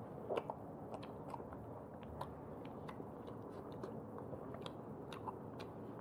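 A person chewing and eating food close to the microphone, with irregular small wet clicks and smacks.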